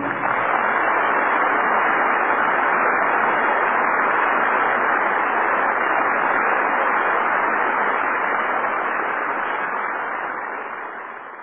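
Steady, even hiss-like rushing noise in a muffled old broadcast recording, with no tune or voice, fading out over the last two seconds or so.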